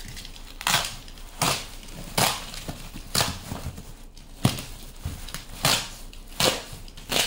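A large parcel's packaging being cut and torn open: about nine short, sharp strokes, roughly one every three-quarters of a second.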